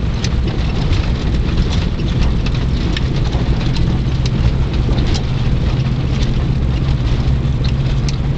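Vehicle driving slowly along a farm road, heard from inside the cab: a steady low engine and road rumble with scattered crackling ticks from the tyres and road surface.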